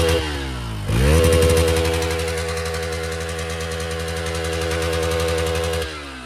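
Motorcycle engine running at a steady, fairly high speed. Its revs sag twice, about a quarter second in and again near the end, then pick straight back up.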